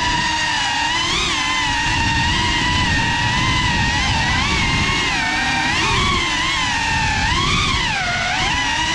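Geprc Cinelog 35 cinewhoop's motors and ducted propellers whining, the pitch rising and falling as the throttle changes, over a low rush of wind and propeller wash.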